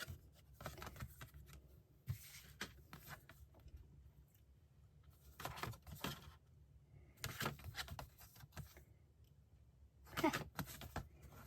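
Cardboard photo prints and paper being handled: short, scattered rustles and light taps as the prints are shuffled and turned over.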